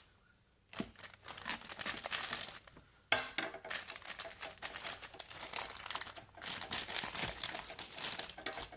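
Packaging bag crinkling as it is handled and pulled open, in irregular rustles, with a sudden louder crackle about three seconds in.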